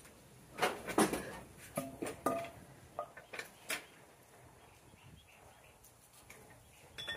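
Irregular knocks and metal clanks with a couple of brief squeaks, bunched in the first few seconds and one more near the end, as a jack pushes a board up under a truck's bent, rusted front core support.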